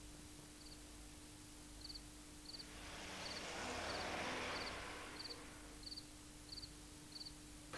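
Faint cricket chirps, each a short pulsed trill, repeating evenly about every two-thirds of a second over a low steady hum. A soft rushing noise swells and fades away in the middle.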